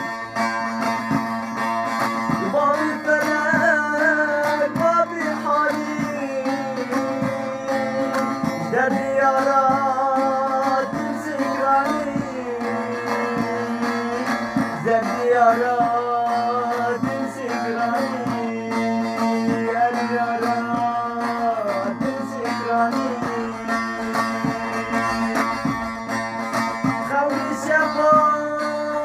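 A slow, sad song: a voice singing a wavering, ornamented melody over plucked-string accompaniment and a steady drone.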